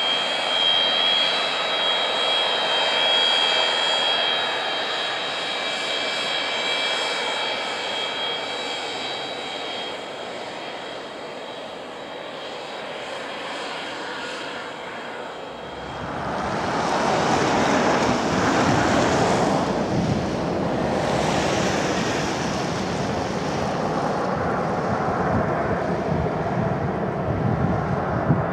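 An Antonov An-72's two D-36 turbofans running with a high, steady whine. About halfway through, it changes to an Antonov An-74's D-36 turbofans on landing approach: louder and fuller, with a low rumble and no whine.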